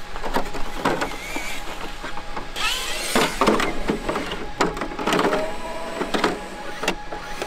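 Plastic RC truck body shell being lowered onto the chassis and pressed down into place: scattered clicks, knocks and rustles of plastic.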